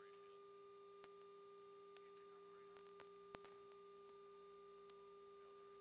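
Near silence on an aircraft intercom line: a faint steady two-note hum, with a few faint clicks, the clearest about three seconds in.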